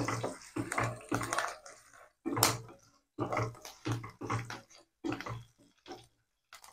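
Wooden spatula stirring and scraping chana dal, urad dal, dried red chillies and sliced green chillies frying in oil in a nonstick kadai. The pan sizzles with a scrape at each stroke, coming in short irregular bursts with brief silent gaps.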